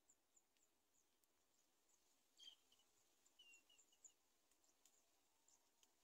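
Near silence, with faint scattered high-pitched ticks and chirps and a few short chirps about two and a half seconds in.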